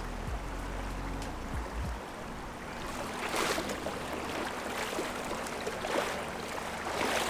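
River current rushing and washing steadily, with a few louder splashy surges about three and a half and six seconds in.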